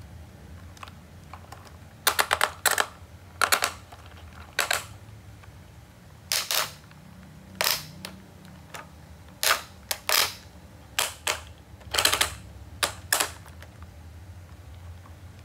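Plastic toy excavator's arm and bucket being worked by hand: sharp plastic clicks in about a dozen short bursts, some of them quick rattling runs, over a faint low hum.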